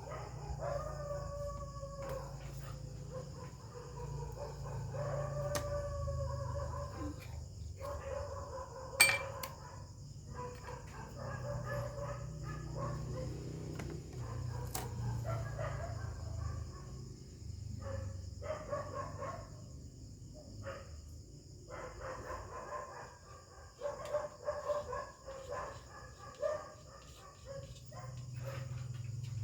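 A dog whining and howling in long, wavering cries that come and go, over a steady high insect drone and a low rumble. A single sharp click about nine seconds in.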